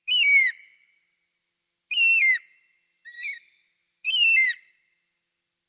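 An eagle calling: three loud, high whistled cries about two seconds apart, each about half a second long and dropping in pitch at the end, with a shorter, fainter call between the second and third.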